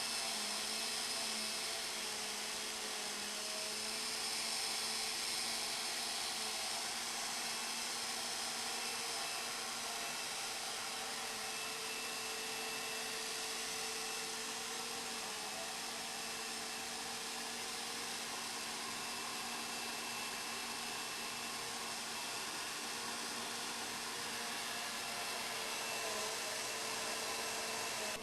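A vacuum cleaner motor running steadily, a constant whirring hiss with a faint low hum.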